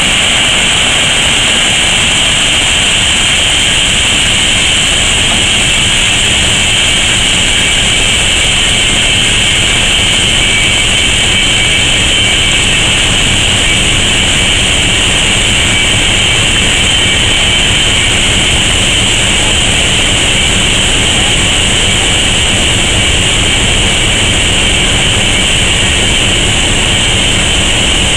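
Crushed stone pouring steadily from the open bottom gates of a loaded railroad hopper car into the unloading pit: a loud, unbroken noise.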